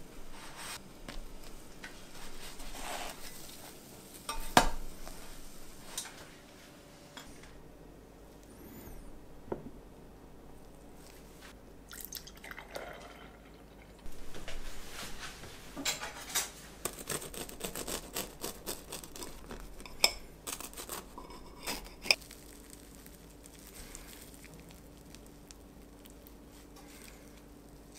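Kitchen handling sounds: scattered clicks, taps and scrapes of a spatula and utensils against a metal griddle and a plate, a few of them sharp.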